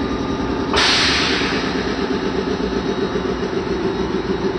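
A stationary JNR 415 series electric train hums steadily. About a second in, a sudden sharp hiss of released compressed air starts and fades away over the next second.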